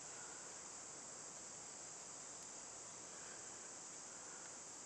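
Faint, steady, high-pitched chorus of insects in summer woodland.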